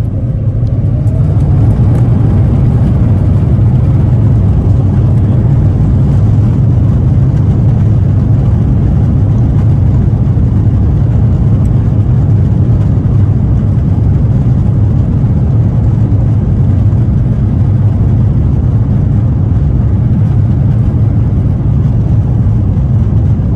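The Airbus A350-1000's Rolls-Royce Trent XWB turbofans spool up to takeoff thrust, heard from inside the cabin. A rising whine and growing loudness over the first couple of seconds settle into a steady, loud, deep rumble through the takeoff roll.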